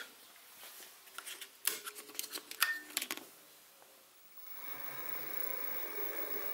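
A few light clicks and knocks, then about four and a half seconds in the mini mill's spindle motor starts and runs with a steady whine, getting slightly louder, as the drill spins up before it is fed into the cylinder to drill a steam passage.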